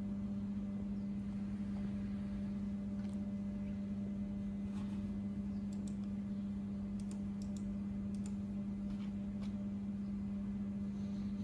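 Steady electrical hum from a CNC router's powered-up control cabinet, with a few faint computer-mouse clicks about six to eight seconds in.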